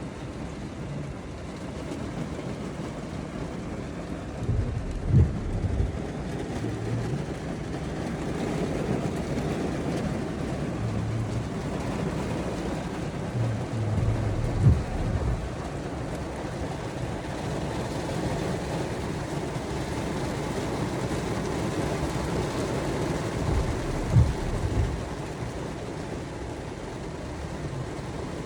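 Steady rain, a continuous even hiss. Three brief low bumps or rumbles break through it about ten seconds apart.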